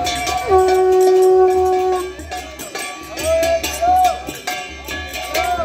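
Conch shell (shankha) blown in one long, steady, loud blast that ends about two seconds in, followed by shorter wavering tones. Beneath it runs a steady rhythm of clashing hand percussion.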